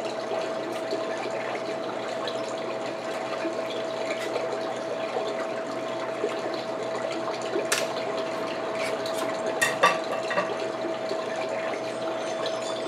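Steady hiss with a faint steady hum beneath it, and a few sharp clicks of king crab leg shell being handled to work the meat out: one about two-thirds of the way through, then two close together a couple of seconds later.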